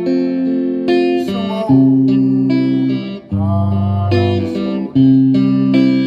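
Instrumental music: a guitar melody of held notes over a bass line, the instrumental interlude of a Korean ballad.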